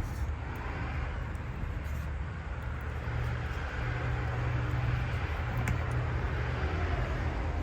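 Steady low rumble of a vehicle, with a low hum that grows stronger about three seconds in.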